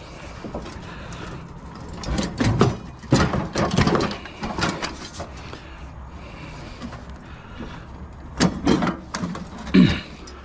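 Irregular knocks, clanks and rattles of scrap metal being handled and shifted, in clusters about two to five seconds in and again near the end, over a steady low hum.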